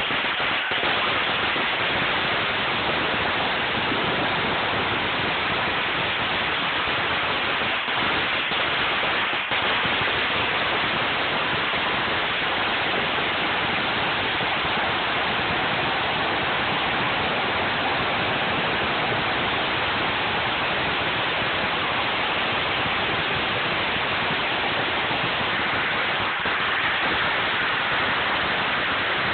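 A huge string of firecrackers going off without pause, the bangs so dense that they merge into one steady crackling roar.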